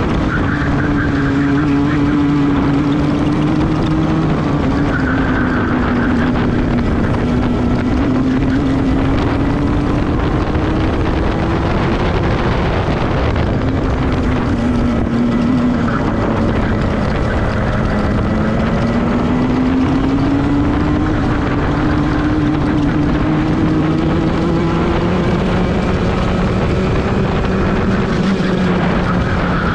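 Racing kart engine heard on board at race pace, its pitch climbing and dropping again and again as it revs up along the straights and slows for the corners.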